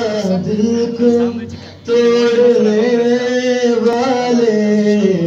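A man singing in long, held notes that waver slightly, with a brief break about a second and a half in before the singing picks up again.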